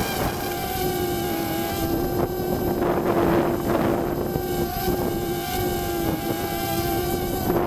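Hubsan quadcopter's motors and propellers whining at a steady pitch that wavers slightly, heard up close from on board, with wind rushing over the microphone that swells about three seconds in and again near the end.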